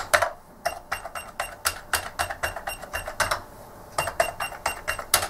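ZX Spectrum+ keyboard keys being pressed one after another during a keyboard test, a rapid run of sharp clicks several a second with two short pauses.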